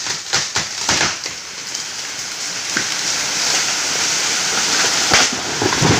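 Dry leaves and branches rustling and crackling, with a sharp crack about five seconds in.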